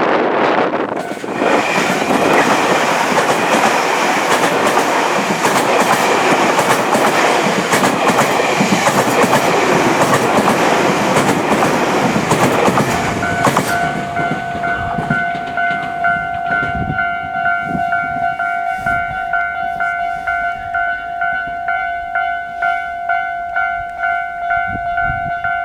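A train passes over the level crossing, its wheels clacking on the rail joints for about the first thirteen seconds. As it clears, the Japanese level-crossing warning bell rings on in a steady, rhythmic ding.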